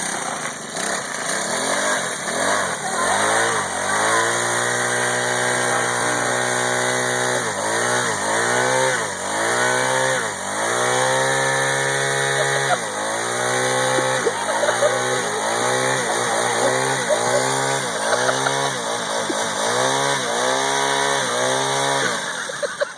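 Small four-stroke gasoline engine driving a gas-powered blender. It comes up to speed about three seconds in and runs steadily, then from about seven seconds on it is revved up and down over and over in quick blips.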